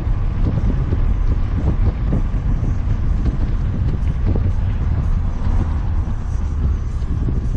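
Inside the cabin of a first-generation Mini Cooper S under way: a steady low rumble of the supercharged 1.6-litre four-cylinder engine and tyre noise, with wind noise over it.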